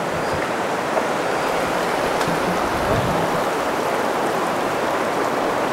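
Rushing water of a river rapid: a steady, even noise that holds without change.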